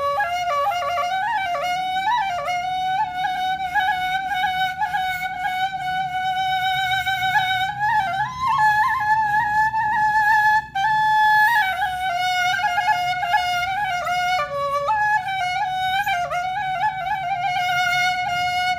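Background music: a solo flute plays a slow, ornamented melody of long held notes with vibrato over a soft low accompaniment, pausing briefly partway through.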